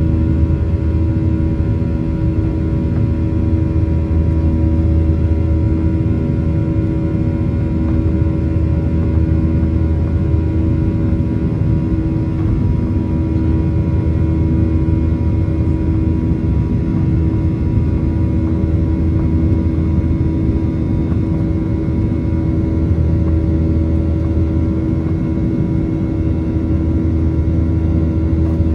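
Boeing 737-900ER's CFM56-7B26 turbofan engines at climb thrust, heard inside the cabin over the wing: a steady loud drone with a deep rumble and several steady tones on top.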